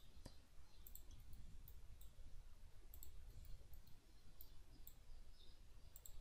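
Faint computer mouse clicks, scattered irregularly, over a low steady background hum.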